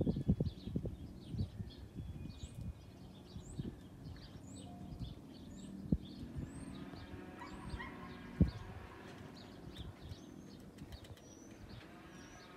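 Small birds chirping over and over in the background. There is a flurry of low bumps in the first couple of seconds, and two sharp knocks later on, the second being the loudest sound.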